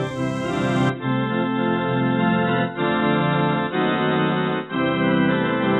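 Background organ music playing held chords that change every second or two.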